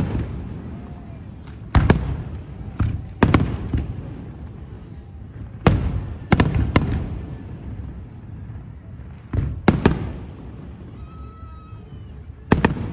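Aerial fireworks shells bursting in sharp bangs, some singly and some in quick runs of two or three. Each bang is followed by a rumbling echo that dies away before the next.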